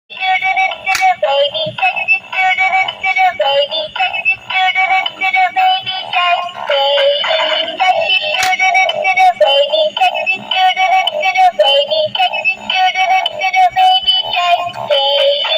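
Music: a high-pitched synthetic voice singing a tune note by note over a steady beat.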